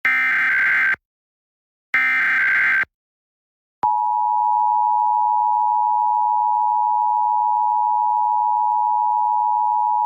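Emergency Alert System SAME header: two shrill bursts of digital data tones, about a second each and a second apart. Then, about four seconds in, the EAS two-tone attention signal starts and holds steady. It is the start of a statewide Required Monthly Test.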